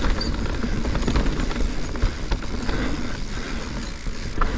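Mountain bike descending a dirt trail: a steady low rumble from the tyres over the ground, with many short knocks and rattles from the bike.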